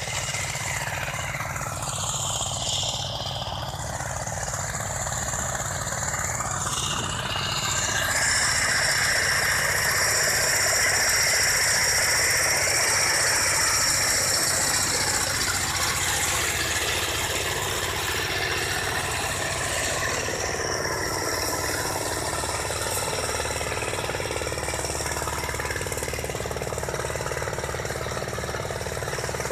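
Farm tractor's diesel engine running steadily with a low, even knocking beat, getting slightly louder about eight seconds in.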